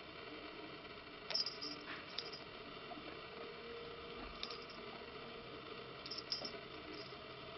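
Kittens' paws and claws on a wooden floor as they play: a few faint, short clicks and light pattering.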